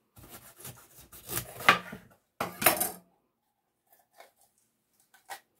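Chef's knife cutting through bell peppers and knocking on a wooden cutting board: a run of cuts over the first three seconds, the loudest near the end of that run. After that, only a few faint clicks as the cut pepper is handled.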